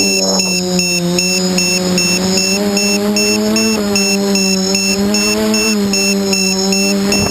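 Quadcopter's four SunnySky 2216 800KV brushless motors spinning 8x4.5 carbon props, a steady hum with a clear pitch. The pitch rises slightly a few seconds in and eases back down as the throttle shifts in flight.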